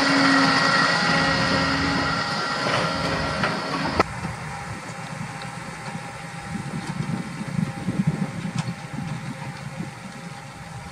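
Case Optum 270 tractor's diesel engine working under load as it hauls a slurry tanker with a grassland injector. It is loud and close with a steady whine for the first four seconds, then changes abruptly to a fainter, uneven low rumble as the rig works away.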